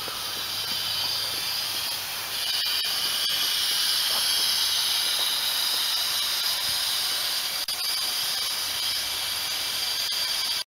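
A small narrow-gauge steam locomotive stands in steam, hissing steadily. The hiss grows louder about two seconds in.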